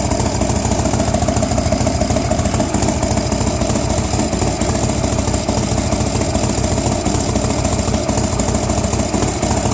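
Carbureted engine idling steadily on its first run after a rebuild for a failed valve guide, fed only by fuel filled into the carburettor bowl. It sounds really good.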